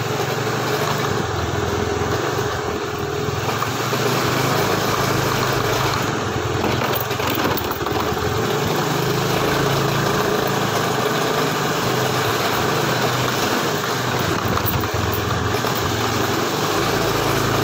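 A small engine running steadily at idle, an even low hum that does not change.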